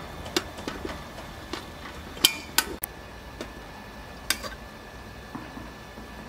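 Metal ladle clinking and scraping against the sides of an aluminium stockpot as the pot's contents are stirred: a scatter of short, sharp clinks, the loudest a little over two seconds in.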